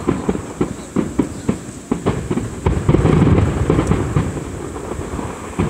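Fireworks display going off: a rapid string of bangs and booms, thickest into a dense crackling run around the middle.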